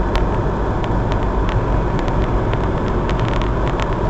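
Steady road and engine rumble heard inside a moving car's cabin, with tyres running on a snow-covered road and scattered light ticks.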